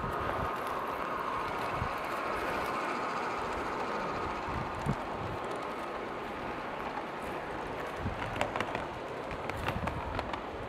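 G-scale model diesel locomotive running along garden railway track: a steady motor-and-gear hum with wheel noise on the rails. A scatter of sharp clicks comes in over the last few seconds.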